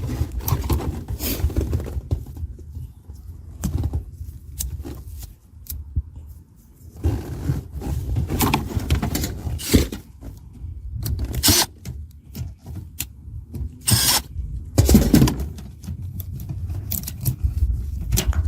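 Irregular clicks, knocks and scrapes of hands and tools handling hardware, over a low rumble.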